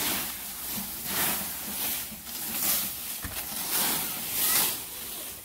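A leaf rake scraping and dragging dry fallen leaves across the ground in repeated strokes, about one a second.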